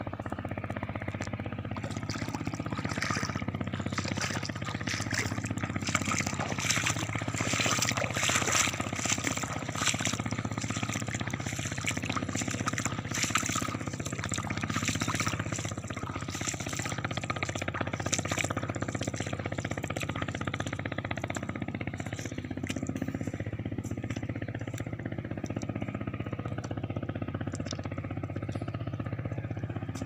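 Footsteps splashing and sloshing through shallow seawater, most busily in the first two-thirds, over a steady low rumble.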